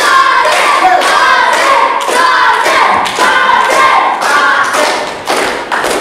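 Wrestling crowd clapping in a steady rhythm, about two claps a second, with voices chanting along, rallying the downed wrestlers.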